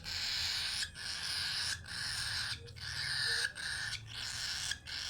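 Baby cockatiel chick giving harsh, raspy begging calls, each about a second long with brief breaks between them.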